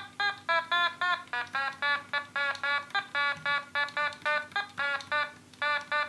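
Otamatone, the Japanese electronic toy instrument, played as a quick run of short pitched notes, about three or four a second, each sliding slightly in pitch, in an attempt at a familiar tune. A brief pause comes near the end.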